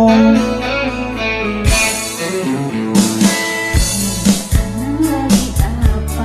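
Pop karaoke backing track with guitar, bass and drum kit playing an instrumental passage between sung lines; a held sung note fades out just after the start.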